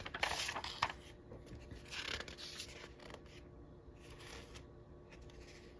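Magazine pages being turned by hand, a few brief, soft paper rustles about a second or two apart.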